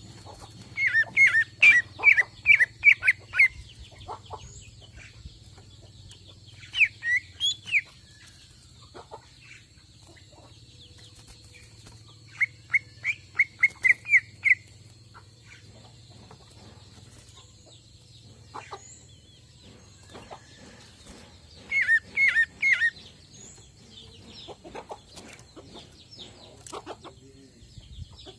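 Cucak ijo (green leafbird) singing: four loud phrases of rapid, repeated high notes, about four a second, separated by quieter pauses of several seconds.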